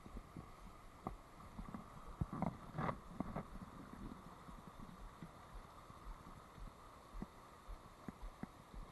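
Shallow river riffle running steadily, with scattered light knocks and clicks throughout, a few louder ones about three seconds in.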